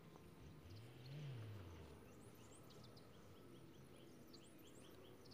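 Near silence: faint outdoor ambience with many faint, short, high chirps of small birds, and a faint low hum that rises and falls once about a second in.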